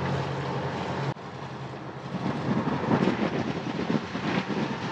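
Steady low drone of the Leopard 45 catamaran's diesel engine pushing the boat along. About a second in the sound changes suddenly to a rough, uneven rushing of wind and water at the helm under way.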